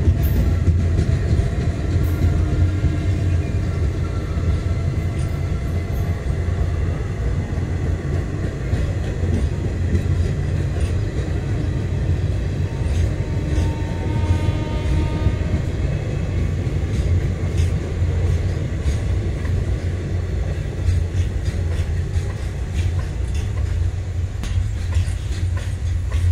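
Indian Railways trains rolling slowly over a concrete railway bridge: first the coaches of a mail express, then container freight wagons. There is a steady, heavy low rumble of wheels on the track, with scattered light clicks in the second half.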